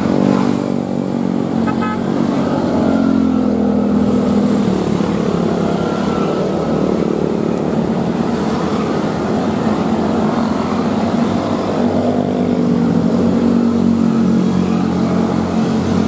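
A large group of motor scooters and motorcycles riding past together, many small engines running at once, their sound swelling twice as bunches of riders go by.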